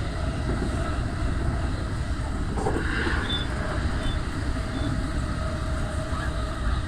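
Keihin-Tohoku Line electric commuter train heard from inside the carriage while running: a steady low rumble of wheels on rails, with a motor whine held at a steady pitch.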